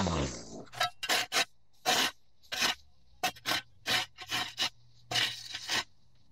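A string trimmer's engine winds down at the start, then a shovel blade scrapes soil and overgrown grass off the edge of a concrete walkway in about a dozen short, quick strokes.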